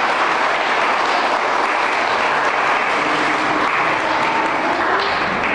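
Crowd of wedding guests applauding steadily, dense even clapping throughout.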